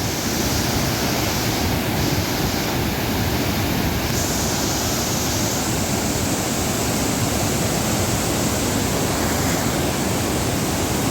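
Waterfall's steady rush of falling water, a constant loud noise.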